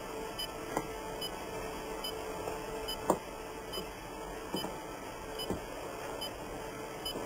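Steady electronic hum made of two held tones, with a faint tick about twice a second and a few scattered soft clicks, like an open radio channel with nobody answering.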